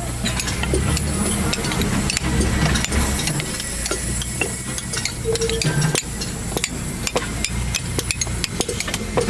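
Scrap metal from a compressor's inner parts being broken apart by hand: a dense run of light metallic clicks and scraping over a low hum.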